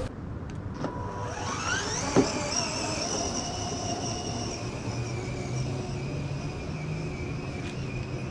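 Electric motors of a battery-powered ride-on toy Jeep whining as it drives, the pitch climbing as it gets going and then holding steady. A single sharp click about two seconds in.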